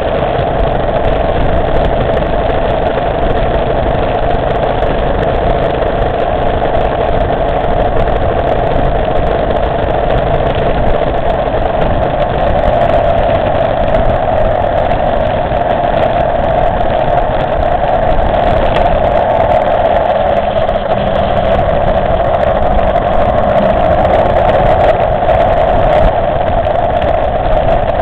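Motorcycle engine running steadily while riding at a cruising speed, with a constant engine note and road noise.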